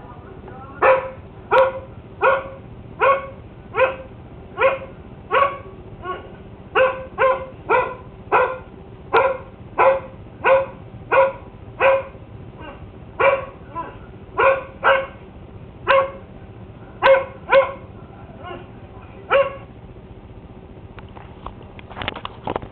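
A dog barking over and over, single short barks about two-thirds of a second apart, stopping a few seconds before the end. Near the end there is a brief rustle and clatter of handling.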